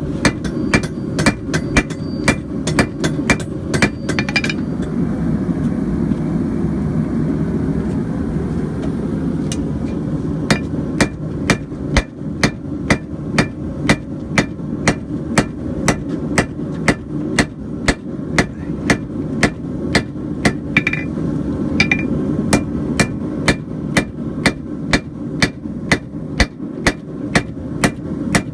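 Hammer blows on a piece of coil-spring steel, flattening it into a blade shape: sharp ringing strikes about two to three a second. They stop for about six seconds a few seconds in, then start again. A steady low rumble runs underneath.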